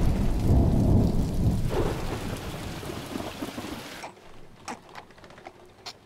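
A roll of thunder over heavy rain, loudest in the first two seconds, then dying away and cutting off about four seconds in. A couple of faint clicks follow near the end.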